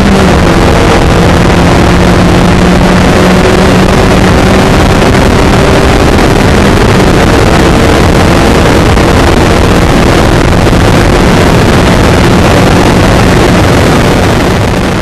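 Skip Barber open-wheel formula race car's engine at high, steady revs at full speed, heard from the onboard camera over heavy rushing noise. The pitch dips slightly just after the start, and the sound fades out near the end.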